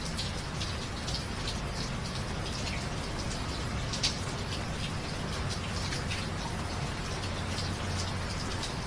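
Steady rain falling, with many individual drops splashing close by and one louder drop about four seconds in, over a low steady hum.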